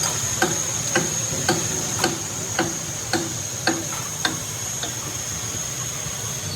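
Evenly spaced sharp clicks or light taps, about two a second, that stop about four seconds in, over a steady high-pitched whine.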